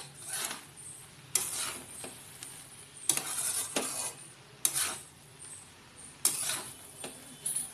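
A flat spatula scraping and turning cooked rice around a metal kadai, about six strokes at irregular intervals of a second or so, as the rice is mixed into the masala.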